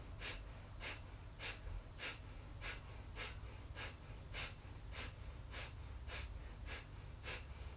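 A woman's short, forceful exhalations through the nose, repeated evenly a little under two times a second, with the belly snapped in on each and passive inhales between: kapalabhati-style rapid breathing.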